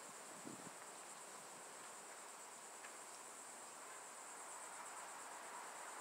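Insects chirring steadily in a high, even drone, with a faint crunch of a footstep on gravel about half a second in.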